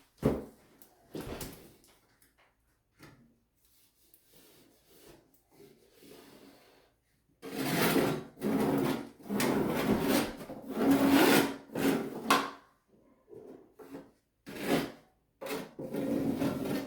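A 6-inch putty knife scraping along waterproofing membrane pressed into a shower corner, in a series of strokes that grow louder and longer about halfway through.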